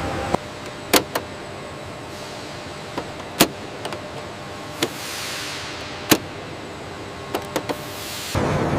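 Steady mechanical hum with sharp clicks and knocks scattered through it, and a soft whoosh falling in pitch about five seconds in. A louder rushing noise starts just before the end.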